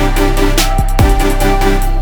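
Electronic background music with a heavy bass and a steady beat of about two kicks a second.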